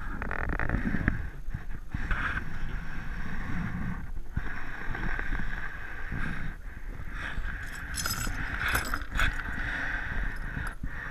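Muffled rumble and rustling from an action camera in its housing being handled and knocked, with a few sharp clicks, two of them a second apart late on.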